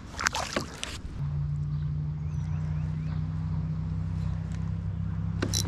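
A few clicks and knocks, then a steady low motor hum that starts about a second in and holds even.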